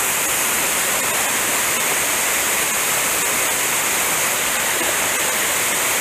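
Small mountain waterfall splashing steadily into its plunge pool, an even rushing of falling water close by.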